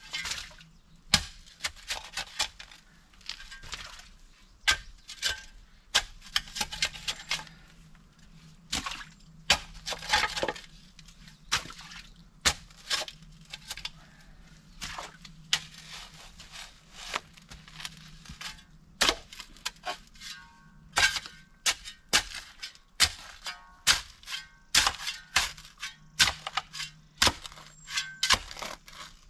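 A shovel digging by hand: a fast, irregular run of sharp blade strikes and scrapes in stony soil, over a faint steady low hum.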